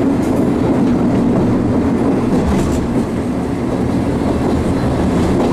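DE10 diesel-hydraulic locomotive's V12 diesel engine running steadily under power as the train travels, heard from just behind the locomotive: a steady drone with rail running noise.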